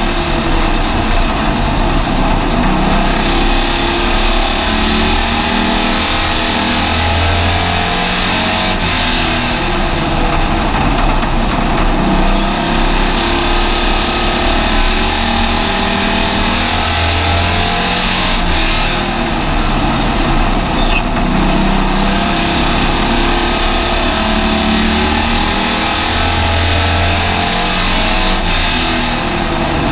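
Hobby stock car's engine heard from inside its cockpit, running hard while lapping a paved oval track. Its pitch rises and falls several times as the car slows for the turns and accelerates down the straights.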